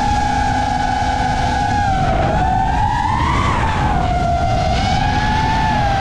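FPV quadcopter motors whining in flight over a rushing of wind and prop wash, the pitch rising with throttle to a peak about three and a half seconds in and then dropping back.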